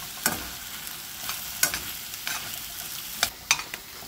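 Metal spoon stirring green chile strips in cream in a stainless steel skillet, over a steady sizzle from the pan, with several sharp clicks of the spoon against the metal, three in quick succession near the end.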